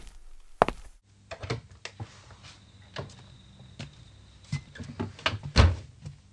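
Sound effects of clicks and knocks: one sharp knock under a second in, then irregular small knocks and clicks over a low hum, with the loudest thump about five and a half seconds in.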